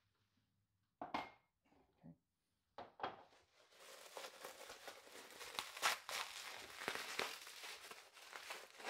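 Plastic bubble wrap crinkling and crackling as a ceramic pot is unwrapped by hand. A few brief rustles come first, then a continuous crackle from about four seconds in.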